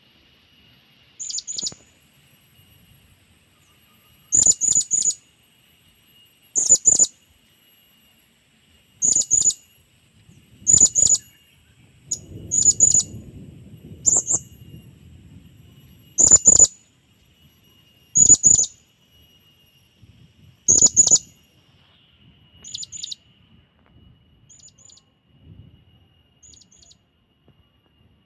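Blue-crowned hanging parrot (serindit) giving sharp, high-pitched calls of two or three quick notes, repeated about every two seconds and growing faint near the end. A faint steady high tone runs underneath.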